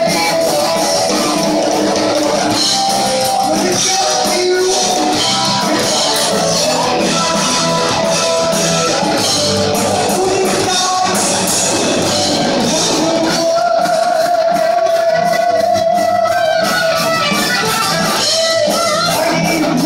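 A heavy metal band playing live: electric guitar and bass over drums, loud and steady. A long held guitar note rings out about two-thirds of the way through.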